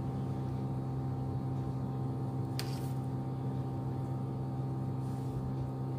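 Steady low electrical hum with no change in level, and a single faint click about two and a half seconds in.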